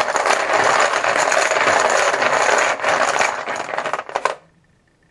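A bucket of chips stirred by hand, a dense clattering of many small clicks that stops abruptly about four seconds in as a chip is picked out.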